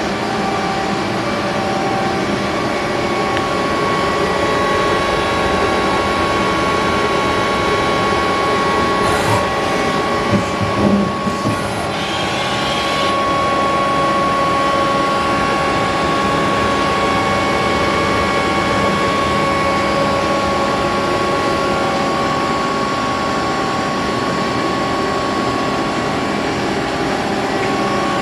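Miyano BND-34S CNC lathe running under power: a steady mechanical hum with a few held tones, a couple of knocks about ten seconds in and a short hiss of air a little later.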